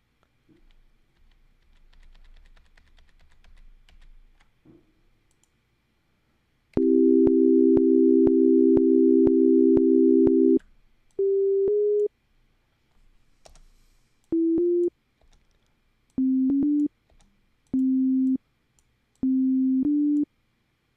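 Computer-generated pure tones playing back from a Logic Pro session: a three-note chord held for about four seconds, then five short phrases of two quick notes each. Each note starts with a sharp click.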